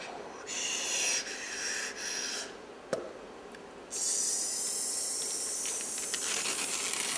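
Hissing, breathy air noises of the kind used as an extended technique in new music: two hissing bursts, a sharp click about three seconds in, then a steady high hiss from about four seconds on.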